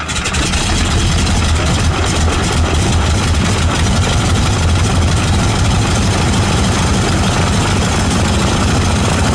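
Nine-cylinder radial aircraft engine running at a steady speed, a low, even exhaust drone with no revving.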